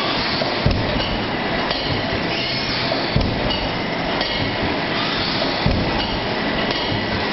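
Automatic plastic cup forming machine with stacker running: a steady mechanical din with a knock about every two and a half seconds, three in all, the rhythm of its forming cycle, and a light clatter of plastic cups dropping onto the stacker rails.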